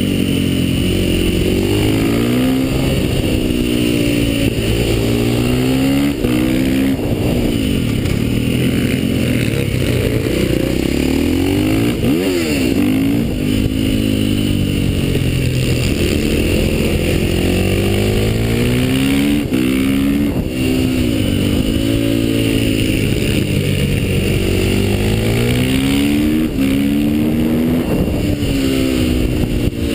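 KTM supermoto motorcycle engine under hard riding, its pitch climbing repeatedly as it accelerates through the gears and dropping on the shifts and braking into corners, with a quick blip of revs about twelve seconds in. Steady wind noise on the microphone runs underneath.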